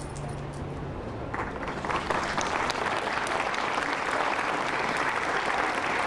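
Audience applause: clapping begins about a second in and quickly builds to steady clapping.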